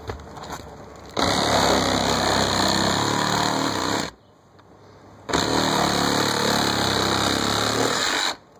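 Makita 18V cordless reciprocating saw cutting through an asphalt-shingle roof. It runs in two bursts of about three seconds each, with a short pause between.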